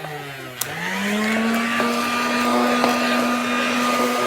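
Hoover Dustette model 100 hand vacuum's motor winding down, then switched back on with a click of its toggle switch about half a second in. It spins up again in a rising whine and runs steadily.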